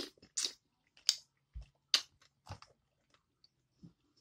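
A person chewing and eating seafood close to the microphone: irregular wet smacks and mouth clicks, the sharpest about two seconds in.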